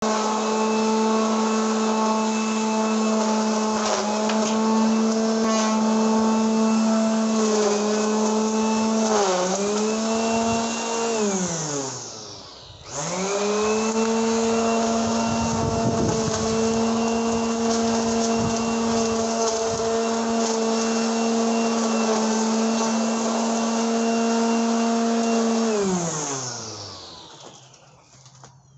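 Corded electric string trimmer running with a steady motor whine. It dips briefly about nine seconds in, winds down falling in pitch about twelve seconds in, starts again a second later, and winds down again near the end.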